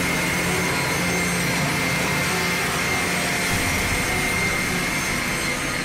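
Double-arbor multiple-blade rip saw running and cutting through a bark-edged wooden slab: a steady, loud sawing noise with a high whine held over it.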